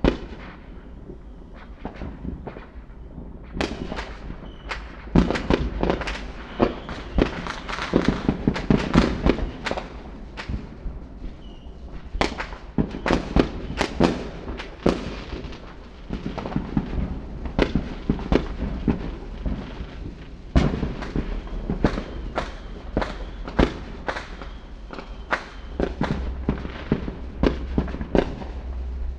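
Fireworks exploding in quick, irregular succession: many sharp bangs and crackles, densest in two flurries in the first half, over a steady low rumble.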